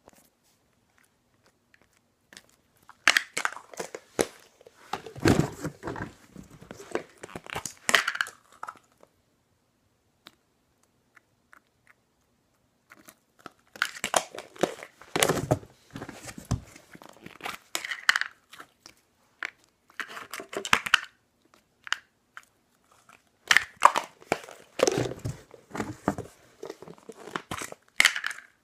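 Slime being stretched, squished and poked by hand, making wet crackling and popping sounds in three bouts of several seconds each, with short quiet pauses between them.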